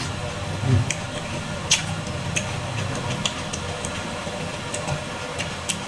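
Close-miked eating of squid salad: scattered sharp, wet mouth clicks and smacks from chewing, with a low thump about a second in, over a steady hiss.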